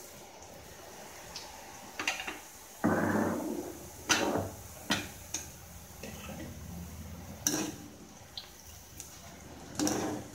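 Metal utensils knocking and clattering several times as a perforated steel bowl and a slotted spoon are handled against a kadai, with a louder scraping clatter about three seconds in. A faint steady hiss of boondi batter frying in hot oil runs underneath.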